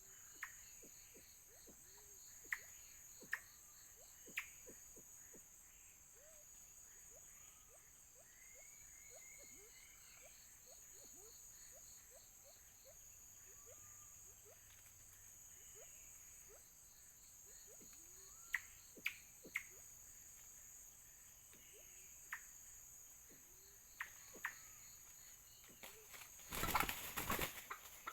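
Faint forest ambience: a steady high chirring of insects, with scattered short sharp bird calls and clicks, and a brief loud rustling burst near the end.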